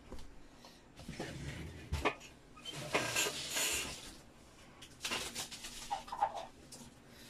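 Small folding laptop table being handled and its legs unfolded: a knock about two seconds in, then rubbing and rustling of the table against the bedding.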